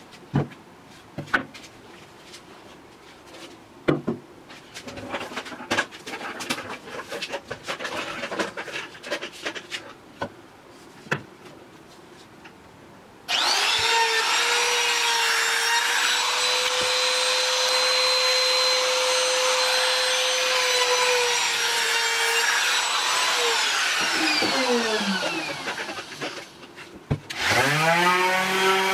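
Wooden boards knocked and slid about on a workbench. About halfway through, an electric power-tool motor starts abruptly, runs steadily for about ten seconds, then winds down with falling pitch. Near the end, a HiKOKI random orbital sander spins up with rising pitch and starts sanding a pine board's edge.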